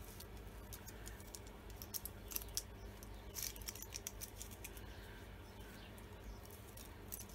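Saw chain clinking and rattling faintly on its guide bar as the bar and chain are handled and fitted to a Stihl MS170 chainsaw, a scatter of small sharp metallic clicks in a few short clusters, over a steady low hum.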